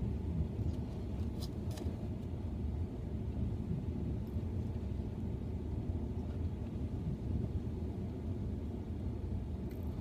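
Steady low rumble of a car heard from inside its cabin, with two faint light clicks about a second and a half in.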